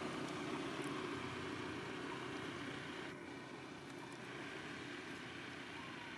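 Steady rumble and hiss of road traffic in the background, easing off slightly about three seconds in.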